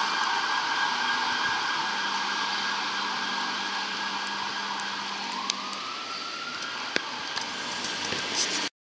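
Siren of a responding FDNY emergency vehicle, slowly fading, with one rising sweep in pitch about five seconds in; it cuts off suddenly near the end.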